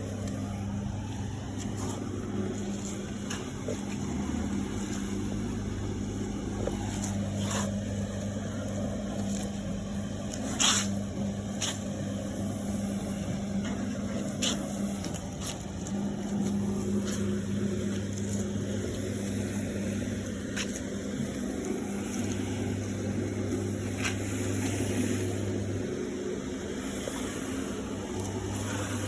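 Carpet-cleaning machine's electric motor running with a steady low hum, with scattered sharp clicks and one louder knock about ten seconds in.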